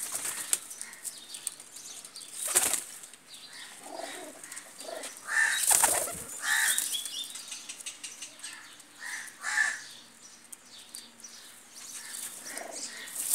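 Domestic pigeons in a loft flapping their wings in short, irregular flurries, the loudest about two and a half and six seconds in.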